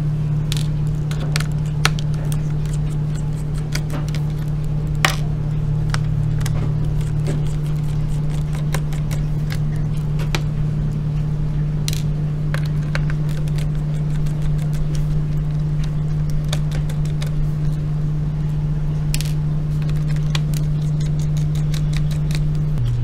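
Steady low hum with scattered small clicks and scrapes of a screwdriver and screws being worked out of a plastic laptop bottom cover.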